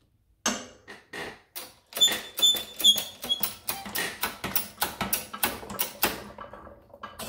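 Steel coin-ring dies and press tooling clicking and tapping as a die is set on the coin in the press: a rapid run of sharp metal clicks, about three or four a second, with brief metallic ringing a couple of seconds in.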